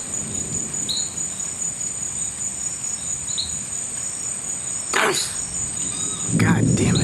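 Crickets trilling steadily in a high, unbroken chorus, with a short high chirp repeating every second or two. A brief noisy sound comes about five seconds in, and near the end a louder low rumble sets in.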